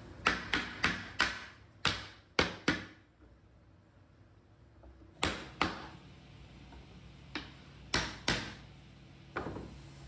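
A mallet striking wood in sharp knocks, in irregular groups: four quick blows, three more, then a pair about five seconds in, another pair around eight seconds and a single one near the end.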